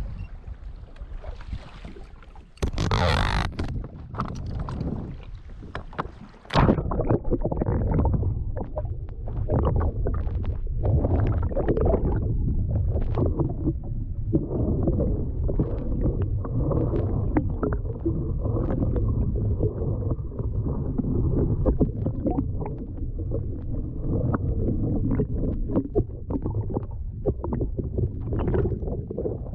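An action camera submerged in sea water, picking up a low, muffled rumble of moving water with many small clicks and knocks. A brief loud burst comes about three seconds in as the sound changes to the underwater rumble.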